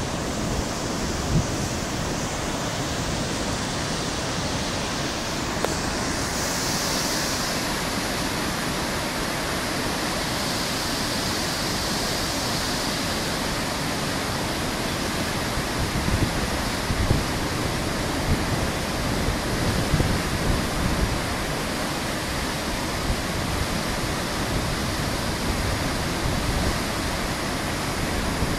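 Water released from a dam gate pouring down the concrete spillway apron and churning white into the river below: a steady, unbroken rush of falling water, growing hissier about six seconds in.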